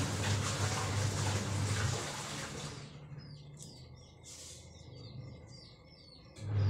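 Rustling noise of water clover leaves being handled in a plastic basket, over a low hum, for the first couple of seconds; then, in a quieter stretch, small birds chirping, many short falling chirps; the rustling and hum come back sharply near the end.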